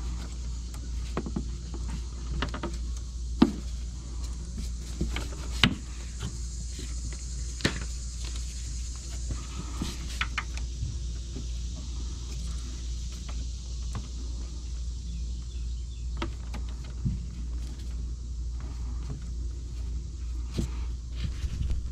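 Scattered small plastic clicks and knocks of hands and a small pick working at the hose fittings of a windshield washer pump on its plastic fluid reservoir, the sharpest about three and a half and five and a half seconds in, over a steady low hum.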